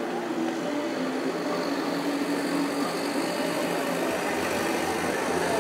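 City street traffic heard from above: vehicle engines running in a steady, mixed hum. About four seconds in, a deeper rumble joins in.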